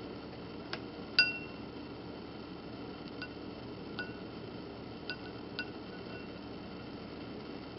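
Water drops falling onto glass, each landing as a small clink with a short ringing tone at the same pitch; about seven drops at irregular intervals, the loudest about a second in, over a steady low hum.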